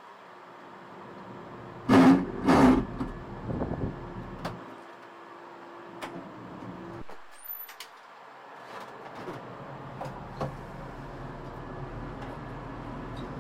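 Tractor and round baler running steadily, heard from inside the tractor cab. About two seconds in come two loud thumps half a second apart, followed by lighter knocks and scattered clicks.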